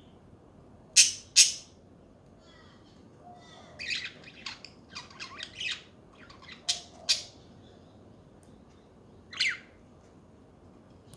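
Budgerigars chattering: two loud, sharp squawks about a second in, a run of quicker chirps in the middle, and a few more single calls later.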